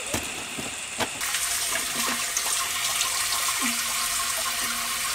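Rainwater pouring and splashing steadily. It starts abruptly about a second in.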